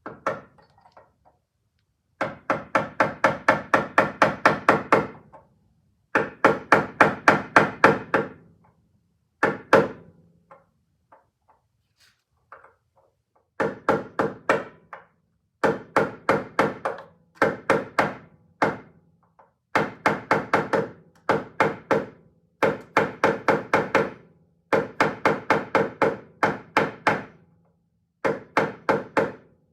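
Hammer tapping a pin into a drilled hole in a Porsche 914 door hinge: quick, even strikes, about four a second, in runs of a few seconds with short pauses between, each blow ringing a little. The pin is a snug fit and is being driven home.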